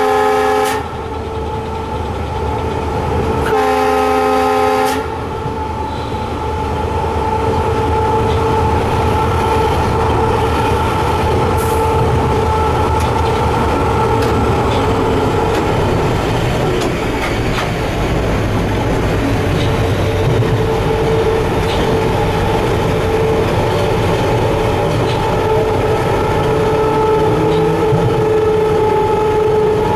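Two blasts of an EMD WDG4D diesel-electric locomotive's horn, heard from inside the cab: the first ends about a second in, and the second, about a second and a half long, follows a few seconds later. Then the locomotive's steady running noise at speed, a rumble with a steady whine over it.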